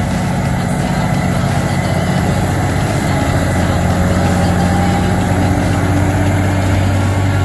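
Massey Ferguson 8740S tractor's diesel engine working under load as it pulls a cultivator through the ground, a steady deep engine note that grows slightly louder as the tractor draws near.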